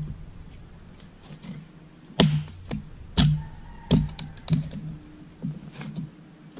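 Axe blows splitting firewood: a series of sharp wooden thuds at an uneven pace, about one every half second to a second, the loudest a little after two seconds in and again around three and four seconds.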